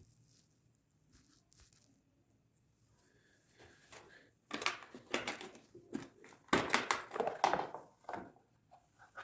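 Irregular rustling and scraping handling noises that start about four seconds in, like hands working with parts or crinkly material. No engine is running.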